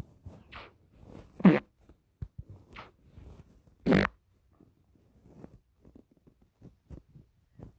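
A handful of short farts, each a brief blurt that slides down in pitch, the two loudest about a second and a half and four seconds in, followed by a few faint clicks.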